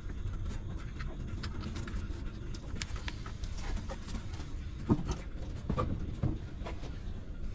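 Newborn puppies suckling at their mother: a run of small smacking clicks, with a few short whimpers about five to six and a half seconds in, the first the loudest, over a steady low rumble.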